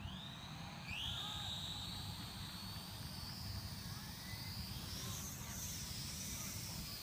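MJX X600 quadcopter's motors and propellers whining high, the pitch jumping up near the start and again about a second in, then wavering up and down as the throttle changes.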